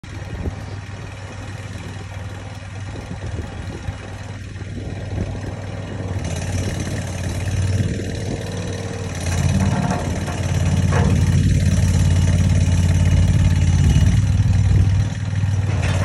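Engine of a marine pile-driving barge's power unit running steadily, getting louder about ten seconds in.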